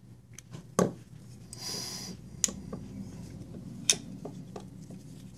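Cold Steel AD10 folding knife handled and worked in the hand: three sharp metallic clicks about a second and a half apart, with lighter ticks and a brief rustle between them. No rattle is heard; the reassembled knife with reversed pins is solid.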